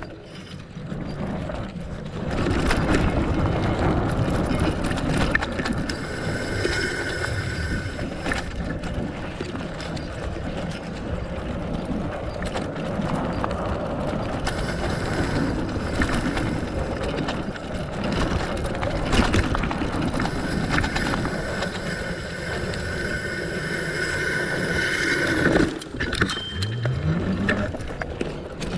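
Fatbike riding over a dirt forest trail: the fat tyres rolling over the ground and the bike rattling and knocking over bumps and roots, with a few harder jolts.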